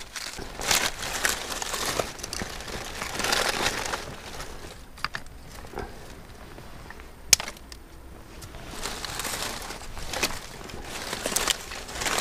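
Papery birch bark being peeled and torn from a tree by hand, crinkling and tearing, followed by dry twigs and kindling being rustled and stacked, with one sharp snap about seven seconds in.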